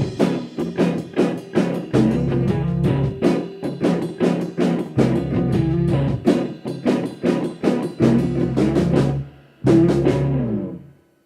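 Rock band playing an instrumental ending on drum kit and guitars, with steady drum hits. A brief drop about nine seconds in, then one last loud hit on the whole band that rings out and dies away.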